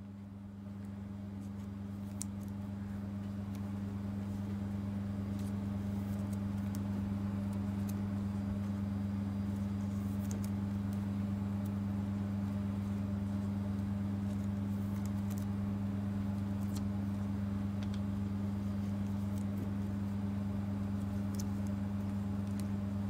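Steady low electrical hum with a pitched drone, rising in level over the first few seconds and then holding, with faint clicks of trading cards being handled.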